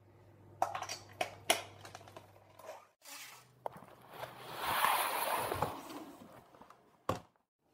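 Handling noise of a large plastic mixing bowl being gripped and slid across a table: several sharp knocks, then a louder rubbing slide about halfway through, and one more sharp knock near the end.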